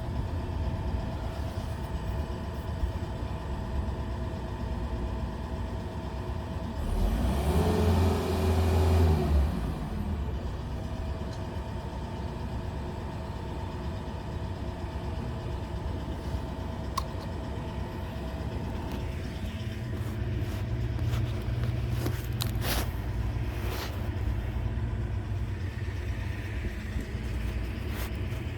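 Steady motor-vehicle engine hum, with a vehicle passing about eight seconds in, its pitch falling as it goes by. A few sharp clicks near the end.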